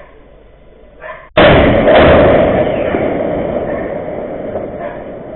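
Rocket strike explosion: a sudden loud blast about a second and a half in, swelling again half a second later, then a long rumbling echo that slowly fades.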